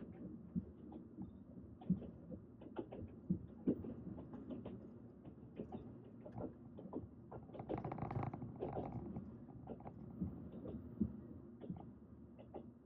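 Train running: a low rumble with frequent, irregular clicks and knocks, swelling louder for about a second some eight seconds in.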